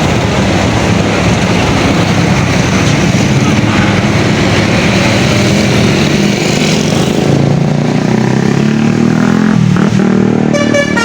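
Tour bus engine running loud and rising in pitch as the bus pulls past, then near the end a Basuri telolet horn starts playing its multi-note tune.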